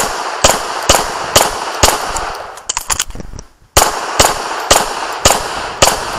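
Pistol shots fired in quick succession, about two a second: six, then a pause of about a second and a half, then five more.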